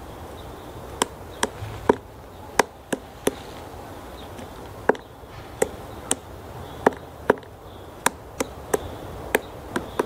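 Female black woodpecker chiselling into the roots of a pine stump: about sixteen single sharp pecks at irregular intervals, starting about a second in. This is foraging excavation for bark beetles, not territorial drumming.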